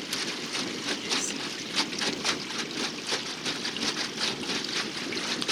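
Water splashing and trickling, many small irregular splashes over a steady rushing noise.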